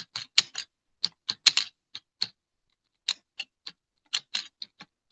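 Typing on a computer keyboard: irregular keystrokes in quick runs, with a pause of about a second midway.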